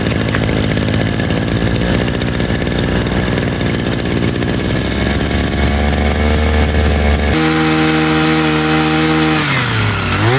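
A small two-stroke engine on a handheld garden tool running and revving up. About seven seconds in, it is cut off abruptly by a steady pitched tone that dips and climbs again near the end.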